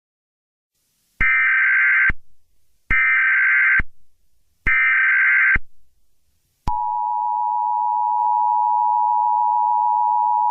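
Emergency Alert System tones: three short bursts of the screeching digital SAME header, each about a second long, then the steady two-tone attention signal, starting about six and a half seconds in and held for about four seconds.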